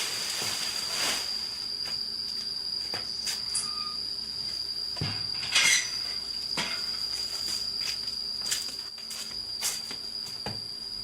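An insect trilling steadily on one high note, with scattered knocks and rustles. The loudest rustle comes about halfway through.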